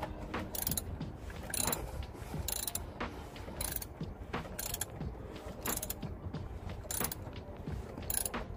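Ratchet wrench worked in steady strokes, a burst of clicks about once a second.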